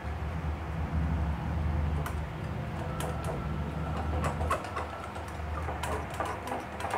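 Wire whisk beating a thick melted-chocolate, butter and cream mixture in a glass bowl: a low rhythmic churning, with light ticks of the wires against the glass from about two seconds in.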